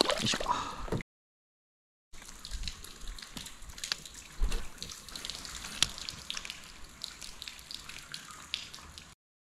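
A fish splashing in a landing net at the water's surface, cut off abruptly about a second in. After a short silent gap, small water splashes and drips with scattered sharp clicks.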